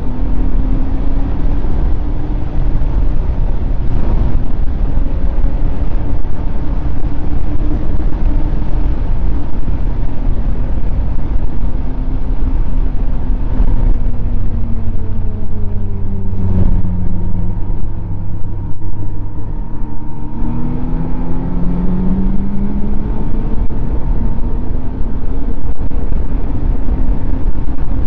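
Snowmobile engine running steadily at speed over a constant low rush of noise. Past the middle its pitch drops as it slows, then climbs again as it speeds back up.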